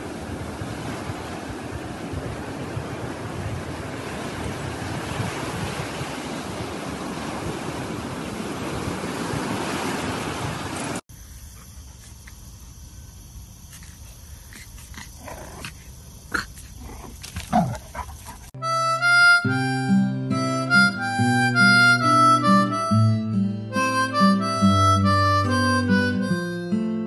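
Surf washing on a beach, with wind on the microphone. It cuts off suddenly about eleven seconds in, leaving a quieter stretch with a few short sounds, one sliding down in pitch. About two-thirds of the way through, background music led by a harmonica with guitar starts and is the loudest part.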